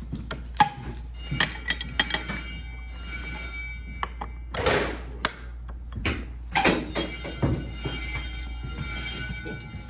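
Wheelock motor fire alarm bells ringing steadily as a high metallic ring, dropping away for a few seconds in the middle and then returning. Several sharp knocks and clunks come through over the ringing.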